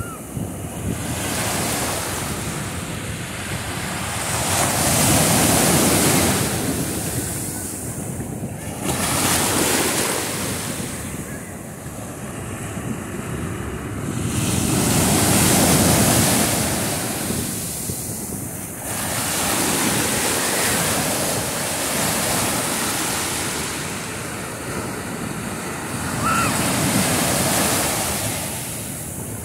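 Ocean surf breaking and washing up the beach, the rush of water swelling and falling away with each wave, about every five or six seconds.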